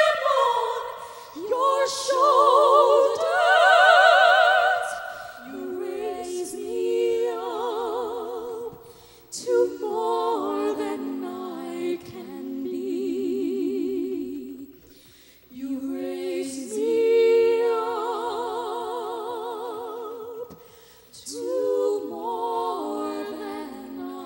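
A female vocal trio singing a slow song in close harmony into microphones, in an operatic style with strong vibrato. They sing in phrases of several seconds with short breaks between them.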